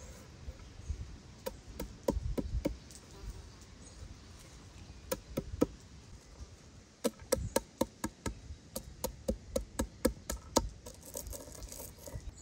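A hand-held round stone pounding walnut kernels on a wooden board, crushing them: short bunches of sharp knocks, then a steady run of about three knocks a second. It ends in a gritty crunching as the stone is pressed over the crushed nuts.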